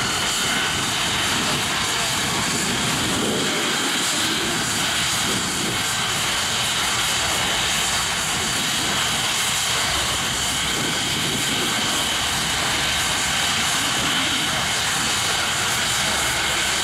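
Saab 37 Viggen's single Volvo RM8 turbofan running steadily on the ground with the jet standing still: a continuous jet whine of several high tones over a broad rush, with no change in pitch or loudness.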